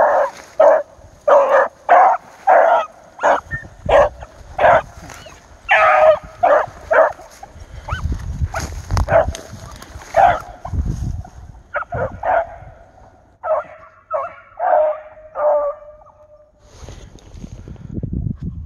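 Hunting hounds barking and baying over and over, a loud bark every half second to a second, the typical voice of rabbit dogs working a scent in cover. The barking breaks off about three-quarters of the way through.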